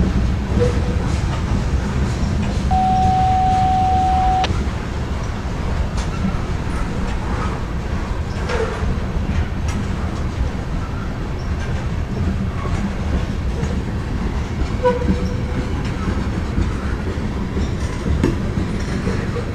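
Loaded covered hopper cars of a Norfolk Southern grain train rolling past: a steady rumble with scattered clicks from the wheels. About three seconds in, a single steady high squeal sounds for under two seconds. A few shorter squeaks follow later.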